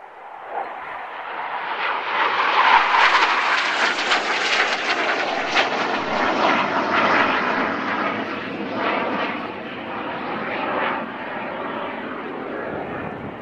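Hawker Hunter jet fighter's single turbojet engine passing overhead in a flypast. The jet noise swells over the first few seconds, peaks, then slowly fades as the aircraft draws away.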